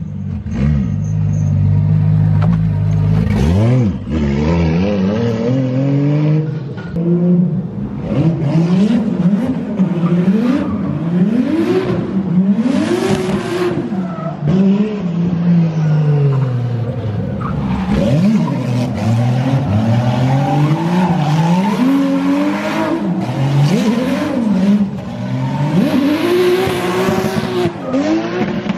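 Single-turbo 2JZ straight-six in a Supra drift car idling steadily for the first few seconds, then revved hard over and over, its pitch climbing and dropping repeatedly. Tyres spin and squeal, filling the air with smoke, in a burnout or drift.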